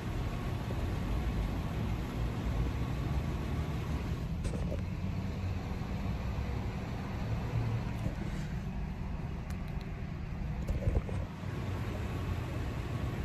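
Steady low rumble of a car heard from inside its cabin, with a few small knocks, the loudest near the end.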